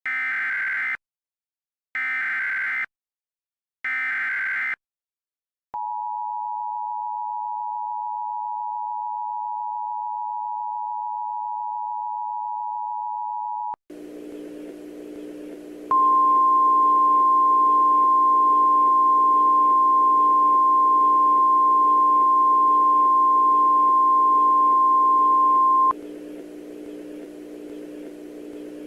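Emergency Alert System tones: three one-second bursts of buzzy SAME header data about a second apart, then the eight-second two-tone attention signal. A steady low hum follows, and about two seconds into it the single-pitch NOAA Weather Radio warning alarm tone sounds for about ten seconds, cuts off, and leaves the hum.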